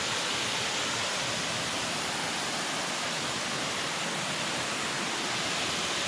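Waterfall pouring through a rock formation into a pool: a steady, even rush of falling water.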